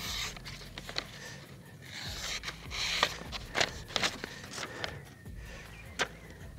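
Sharp knife blade slicing through a hand-held sheet of paper in a sharpness test: hissing slicing strokes, the clearest about two to three seconds in, with paper rustling and a few light clicks from handling. The blade cuts cleanly, the sign of a keen edge.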